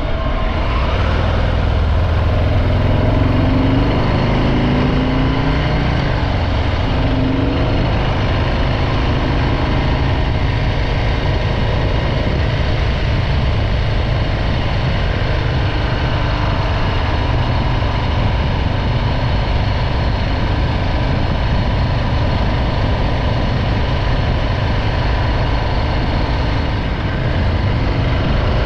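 Harley-Davidson Breakout 114's Milwaukee-Eight 114 V-twin engine running through its stock exhaust. Its pitch rises a few times in the first several seconds, then it runs steadily.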